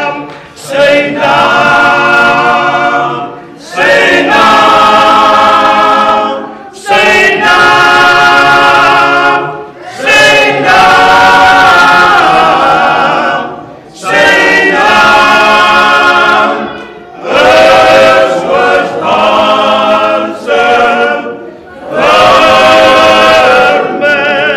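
Male a cappella gospel group singing in close harmony: full held chords in phrases of a few seconds, each broken off by a short pause for breath.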